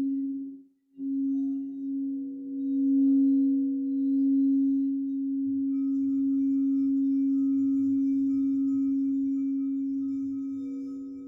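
Singing bowl sounding a steady, sustained low ringing tone with faint higher overtones. It breaks off briefly about a second in, then is held and fades near the end.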